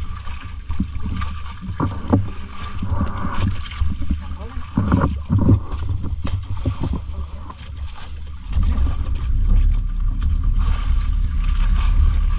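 Boat engine running with a steady low rumble and wind and water noise; the rumble grows louder about eight and a half seconds in.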